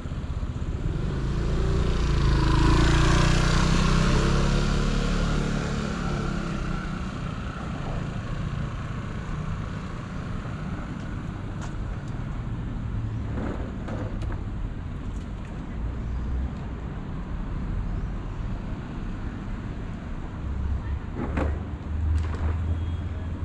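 A motor vehicle passes by on a nearby road, its engine and tyre noise swelling over the first few seconds and then fading. After that comes a steady city street background of traffic, with a few short knocks later on.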